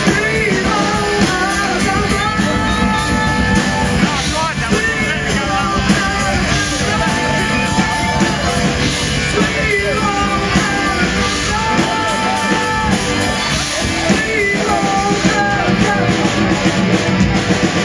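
Live rock band playing loudly, electric guitars and drums with cymbals, a lead singer belting the vocal over the top.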